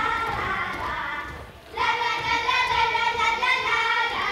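A children's group singing a Hungarian folk song in unison, breaking off briefly about a second and a half in and then going on, with dancers' boot steps thudding faintly on the stage underneath.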